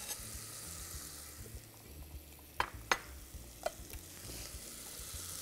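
Small cubes of lamb browning with onion in a pot, a soft steady sizzle while the meat turns from red to brown. Three short sharp clicks come a little past the middle.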